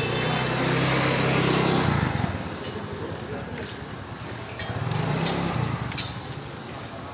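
A motor vehicle engine running nearby, loudest in the first two seconds, fading, then rising again around five seconds in. A few sharp clicks sound over it.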